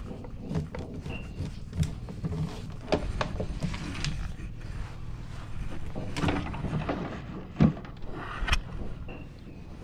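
Handling noise around a plastic kayak: irregular knocks, clicks and scrapes as rope and gear are handled, with one sharper knock about three-quarters of the way through.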